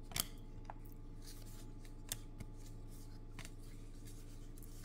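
Baseball trading cards being flipped through by hand: a few soft, scattered clicks and slides of card against card, over a faint steady low hum.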